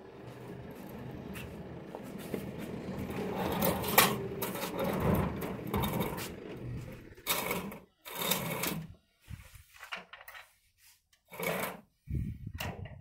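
Steel-framed fiber-cement wall panel scraping and grinding along a concrete slab as it is raised and stood upright, with a sharp knock about four seconds in. After that come a few short scrapes and knocks with pauses between.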